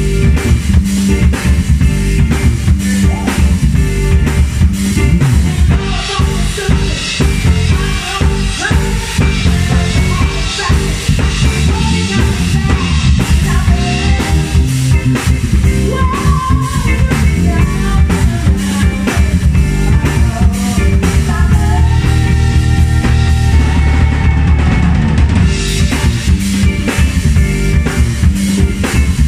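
Live band playing a groove on drum kit, electric guitars and keyboard, with a steady beat.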